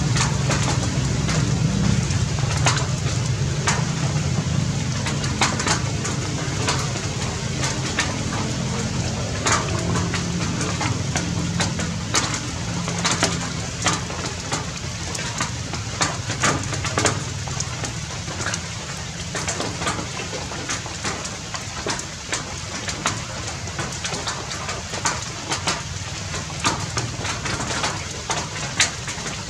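Rain falling on tree leaves: a steady hiss scattered with many separate drop ticks, over a low rumble that fades away by about halfway through.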